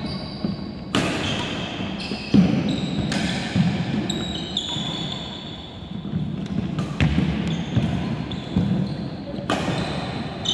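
Badminton doubles rally: sharp racket strikes on the shuttlecock at uneven intervals, with shoes squeaking and feet thudding on a wooden court. It echoes in a large hall.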